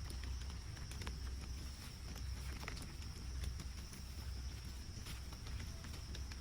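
Rainforest background with a steady high insect drone, and scattered light knocks and clicks.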